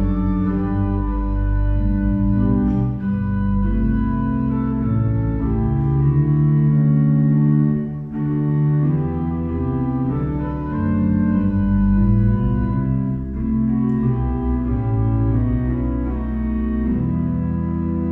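Church pipe organ playing the introduction to a hymn: slow sustained chords over a deep bass, changing step by step, before the voice comes in.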